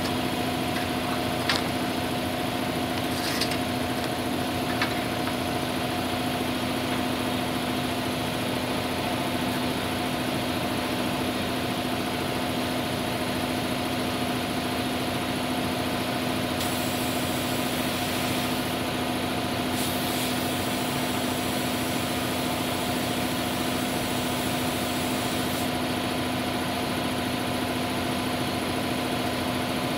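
A motor running steadily with a constant, unchanging hum. A few light clicks come in the first five seconds.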